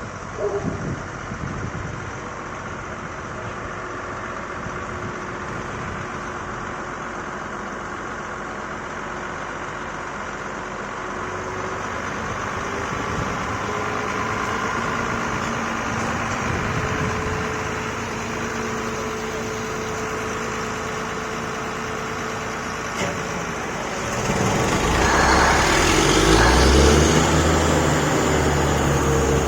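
Engine of a truck-mounted borewell drilling rig running steadily, growing louder and deeper about 24 seconds in.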